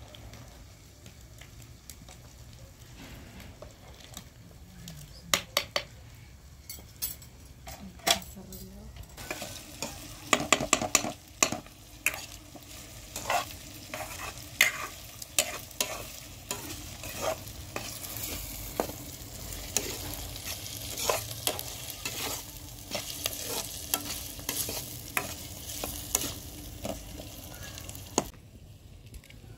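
Chopped onions sizzling as they fry in a pan over a wood fire, with a metal spoon scraping and clicking against the pan as they are stirred. The sizzle grows louder partway through and cuts off abruptly near the end.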